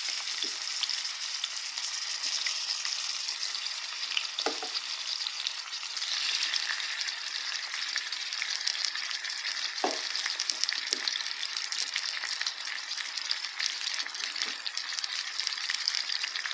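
Diced chicken breast sizzling in hot oil in a pot, a steady sizzle that grows louder about six seconds in, with a few short knocks from the stirring utensil against the pot.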